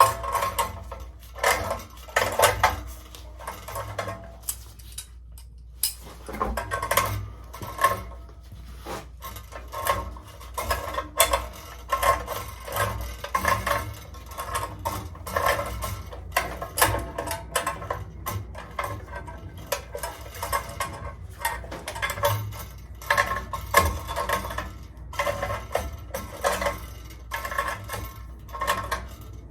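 Irregular metallic clinks and scrapes of a wrench and threaded steam-boiler fittings being worked as a pressure control is spun onto its piping, with a short lull about four seconds in.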